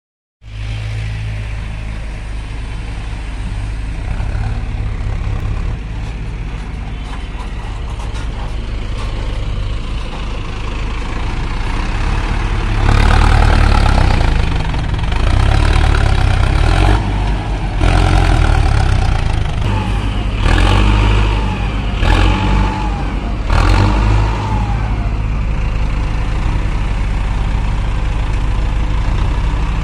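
Heavy diesel engine of earth-moving machinery running steadily, then revving hard in several bursts from about 13 to 24 seconds in, the pitch rising and falling under load, before settling back to a steady run.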